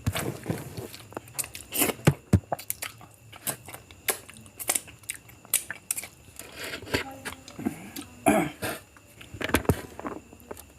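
A person chewing and eating biryani, with irregular sharp mouth clicks and smacks throughout.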